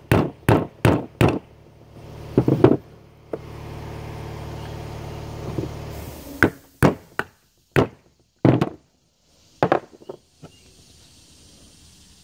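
A series of sharp knocks as a cast steel steering knuckle and metal parts are handled and set down on a wooden workbench: four quick knocks at the start, a pair about two and a half seconds in, then several single knocks spaced out through the second half. A steady low hum runs for a few seconds in the middle.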